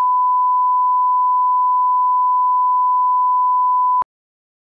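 Steady 1 kHz reference test tone, the line-up tone that accompanies colour bars, cutting off suddenly with a click about four seconds in.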